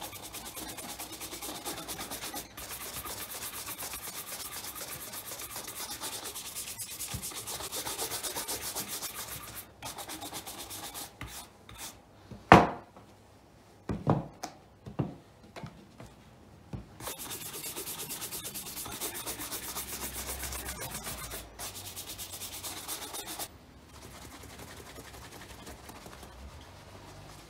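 Brisk, rapid strokes of a shoe brush across a leather shoe, then a few sharp knocks as the shoes are handled on the table about halfway through. The brushing starts again, and near the end it gives way to softer rubbing with a buffing pad.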